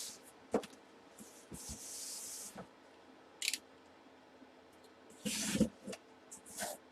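Handling and unpacking a cardboard box: scattered rustles and scrapes, a hissing rustle for about a second, a few light knocks, and a louder rustle and thump a little after five seconds.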